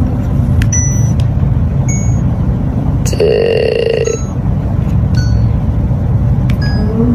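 GiiKER electronic tic-tac-toe board giving short electronic beeps as its squares are tapped, with one longer buzzing tone about three seconds in. A steady low rumble runs underneath.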